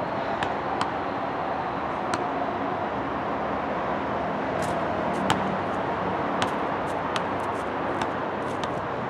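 Steady wind noise on the microphone, with a series of sharp knocks from a basketball bouncing on asphalt; one knock about five seconds in is louder than the rest.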